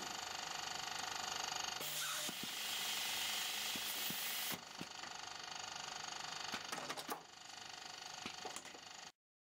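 Automated print-and-apply labelling machine running: a steady mechanical whir with a few sharp clicks. The sound shifts about two seconds in and again around four and a half seconds, and cuts off suddenly near the end.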